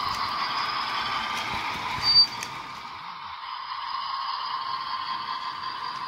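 HO-scale model freight train rolling past close by, a steady whine with light clicks of wheels on the track. About two seconds in there is one brief, loud, high-pitched squeal.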